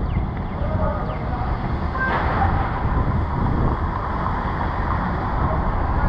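Steady urban street noise, mostly a low rumble of traffic with no distinct events.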